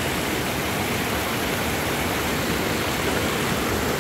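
Small waterfall spilling between boulders into a rocky stream: a steady rush of falling and flowing water.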